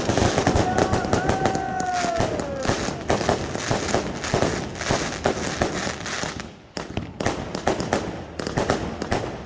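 Consumer aerial fireworks firing in quick succession: a dense stream of cracks and bangs from shells bursting overhead, with a held tone that drops in pitch about two and a half seconds in. From about six and a half seconds the bangs thin out into separate sharp reports.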